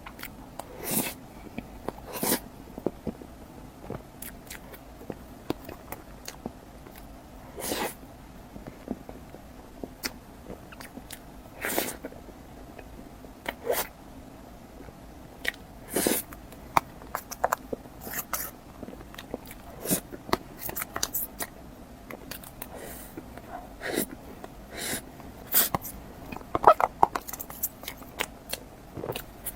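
Close-miked eating of a chocolate dessert box: irregular bites, chewing and sharp mouth clicks, spaced a second or more apart, with a denser cluster near the end.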